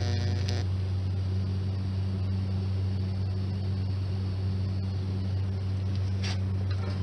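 Steady electrical mains hum of a welding machine, with a buzzing tone that stops about half a second in.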